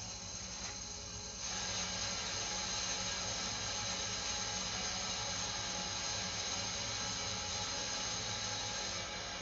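Water hissing as it rushes through the piping of a hydronic heating system being refilled, starting about a second and a half in and then running steadily over a low hum. This is the refill that tests a newly fitted circulator pump's seals for leaks.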